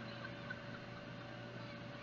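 Amusement park ambience: a steady motor hum with a constant whine, under faint distant voices.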